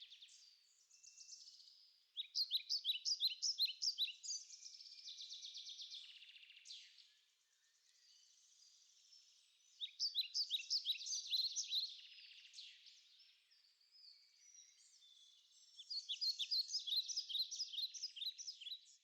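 Birdsong: several bouts of quick, repeated high chirping notes, with quieter stretches between the bouts.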